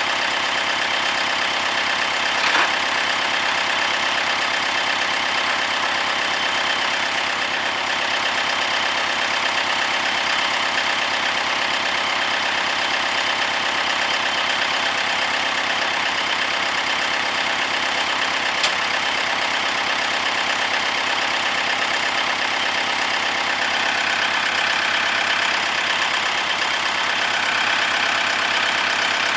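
Kubota D1105 three-cylinder diesel engine of a rider vacuum running steadily, its tone shifting slightly about three-quarters of the way through.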